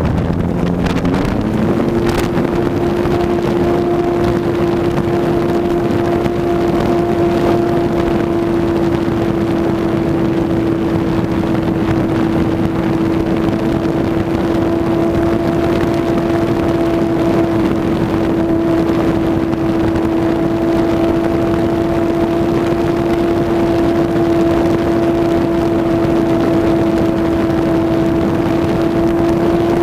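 Electric brushless motor and propeller of a ParkZone T-28 Trojan RC plane whining steadily in flight, with wind rushing past an onboard camera. The pitch steps up about a second in, then holds steady.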